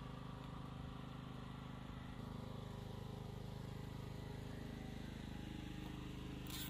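A steady low mechanical hum, like a motor running, shifting slightly in pitch about two seconds in, with a sharp click near the end.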